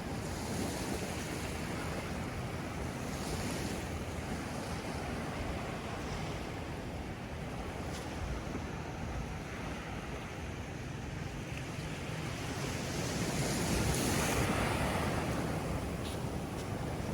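Ocean surf washing onto a beach, with wind buffeting the microphone; the surf swells louder toward the end as a wave comes in.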